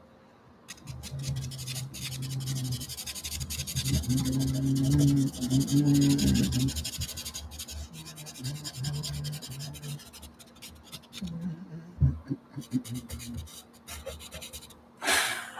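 Stabilo CarbOthello pastel pencil scratching and rubbing across gesso-coated cold-press watercolour paper in quick, short strokes, busiest in the first ten seconds and sparser after.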